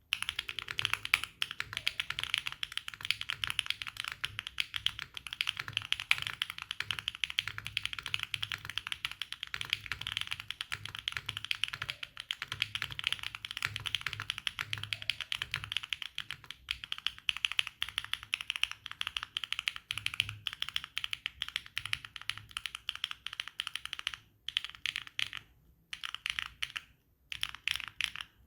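Fast, continuous typing on a Neo80 mechanical keyboard with HMX Sandstorm clacky tactile switches on a polycarbonate plate with no foam, with a few short breaks near the end.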